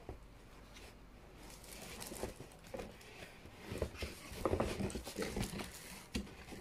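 Cardboard laptop-box packaging, with its moulded pulp tray and a plastic-wrapped part, being handled: scattered light rustling and soft knocks that pick up after about two seconds and are busiest around the fourth to fifth second.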